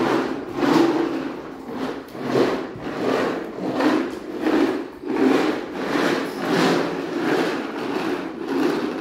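Hard plastic wheels of a large toy truck rumbling over a tiled floor as a child rides and scoots it along, swelling and easing in repeated surges about every two-thirds of a second with each push of his feet.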